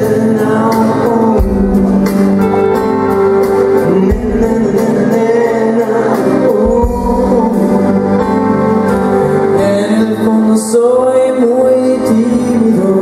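Live pop song played by a band with piano and electric guitars, with singing from a lead vocalist and a gospel choir.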